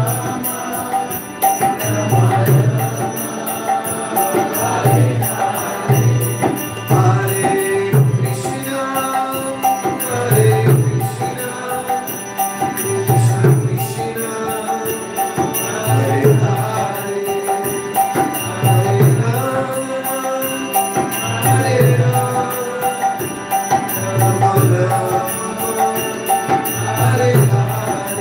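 Devotional bhajan: a mridanga drum beating a repeating rhythm under sustained harmonium chords, karatalas hand cymbals ticking a steady beat, and voices singing the chant.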